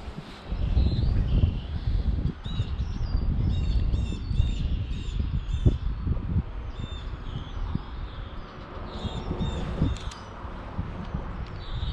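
Small birds chirping in short, repeated calls, heard in little clusters, over a louder uneven low rumble with a few brief knocks.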